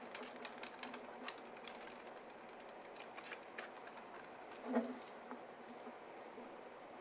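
Faint computer keyboard typing: a quick run of key clicks in the first two seconds, then scattered clicks. A brief low hum of voice about five seconds in.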